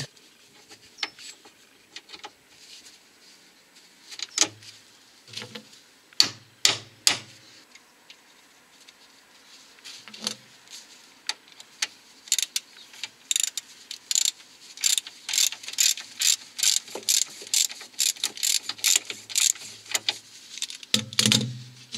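Hand socket ratchet clicking in quick, even runs while the nut on a track rod end ball-joint stud is tightened. A few separate metal clinks come first, as the parts are fitted.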